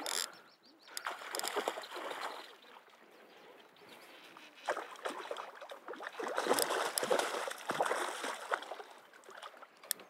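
A hooked brown trout thrashing and splashing at the lake surface beside the boat, in irregular bursts of splashing that are heaviest from about four and a half to eight and a half seconds in.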